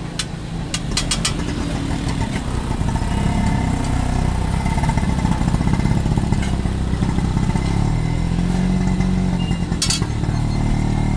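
A vehicle engine running close by amid street traffic noise, a steady low rumble that grows louder a few seconds in. A few sharp clicks come near the start and again about ten seconds in.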